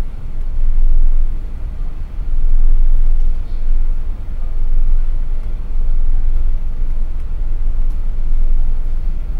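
Heavy low rumble aboard a car ferry under way, swelling and easing every second or two.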